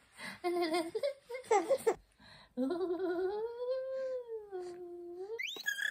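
Baby cooing and babbling in short pitched sounds, then one long drawn-out coo that rises and falls in pitch, ending in a high rising squeal.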